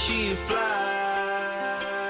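Background music: a pop song's sustained chords. The drums and bass drop out about half a second in.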